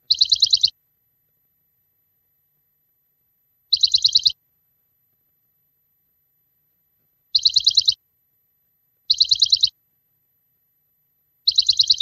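Small bird chirping: five short bursts of about seven rapid high chirps each, spaced a few seconds apart with silence between.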